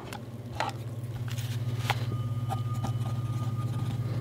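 Soft ticks and rustles of a paper notebook being handled and a pencil touching the page. Beneath them a low steady hum swells in over the first couple of seconds.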